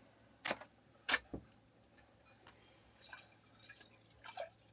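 Two sharp clicks of cutlery on dishes about half a second apart, then a few faint small clinks.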